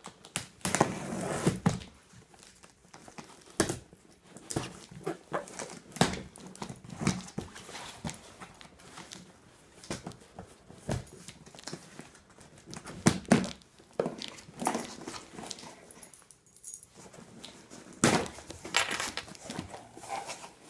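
Cardboard shipping box being opened with a set of keys: the keys scrape and cut through the packing tape, with sharp clicks and knocks and cardboard rustling. A longer tearing sound near the end as the tape pulls away and the flaps open.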